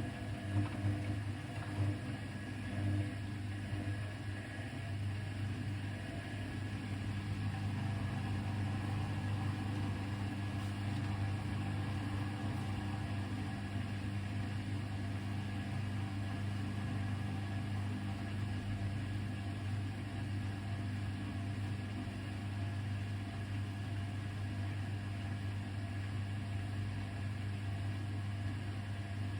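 Hoover VHD 812 washing machine running with a steady low hum, a little more uneven in the first few seconds before it settles.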